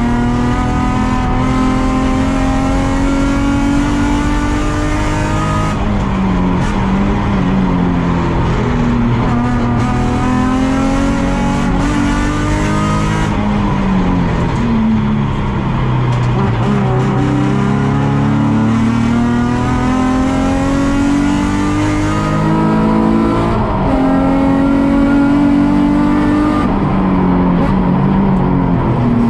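Nissan 350Z race car's V6 engine heard from onboard under hard driving. Its pitch climbs through the gears and drops at each upshift, then falls away as the car brakes for corners, over and over.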